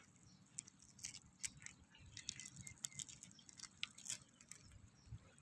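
Faint, scattered clicks of green mussel shells knocking and scraping together as a hand pulls clumps of them loose.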